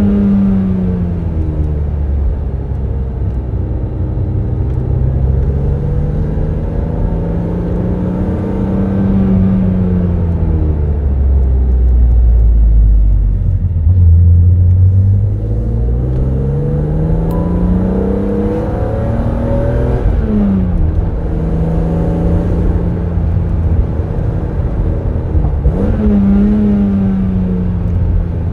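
BMW Z3 M Roadster's 3.2-litre naturally aspirated inline-six heard from the driver's seat, its note rising and falling with engine speed under a manual gearbox. Deep rumble swells in the middle; the pitch drops sharply about twenty seconds in and jumps up sharply near the end.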